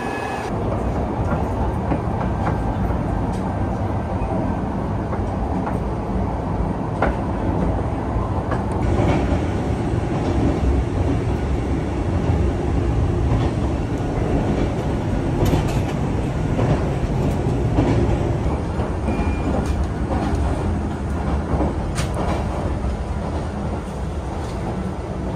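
Moving passenger train heard from inside the carriage: a steady rumble of wheels running on the rails, with occasional short clicks and knocks.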